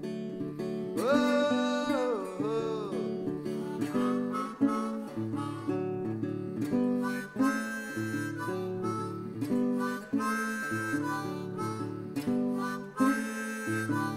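Background music: strummed acoustic guitar with a harmonica melody, the harmonica bending its notes near the start.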